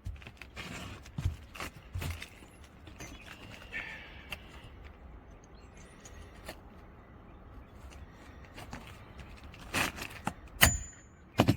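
Hammer striking a roof snake nail-driving tool, a few sharp metallic hits near the end, after lighter clicks and taps as the tool is positioned on the shingle.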